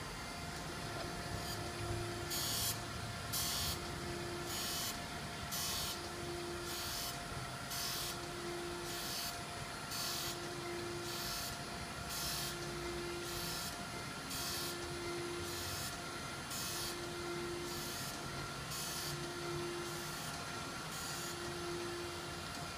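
Okamoto PSG-52DX surface grinder making a test cut. The wheel hisses against the workpiece in short, regular bursts, about one a second, as the table travels back and forth under it, over the machine's steady whine. The hissing starts about two seconds in.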